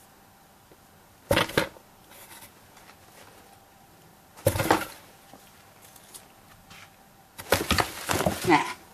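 A cat scratching and scrabbling at a cardboard box from inside, in three bursts of rough scraping and rustling. The first two are short, about a second and a half and four and a half seconds in, and a longer run comes near the end.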